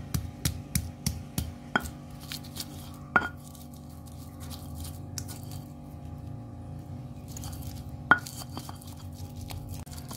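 Stone pestle pounding and grinding spices in a stone mortar (Indonesian ulekan and cobek). It opens with quick knocks about three a second, then goes on as a rough rubbing grind broken by a few sharp stone-on-stone clicks, as the spices are worked into a paste.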